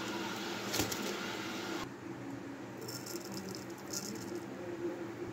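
Hot oil sizzling around fried taro-leaf rolls lifted on a slotted spoon, with a single clink about a second in. After an abrupt change near two seconds, cumin seeds poured into hot oil in a wok crackle in short spurts, over a steady low hum.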